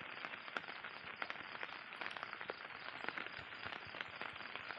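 Faint, steady outdoor background hiss with a few scattered small clicks.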